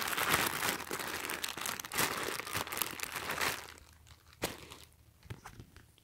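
Clear plastic poly bag crinkling as it is handled, for about three and a half seconds. Then it goes much quieter, with a sharp tap at about four and a half seconds and a few lighter ones after.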